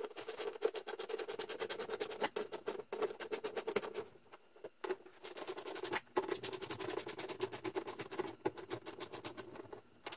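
Socket ratchet clicking rapidly as bolts on an inboard boat engine's cover are backed out, in two runs of a few seconds with a short pause about four seconds in.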